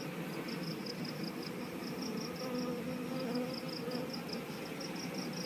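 Steady low hum of a crowded western honeybee (Apis mellifera) colony in an open hive box, its frames densely covered with bees. Over it runs a high, even chirping pulsing about six or seven times a second.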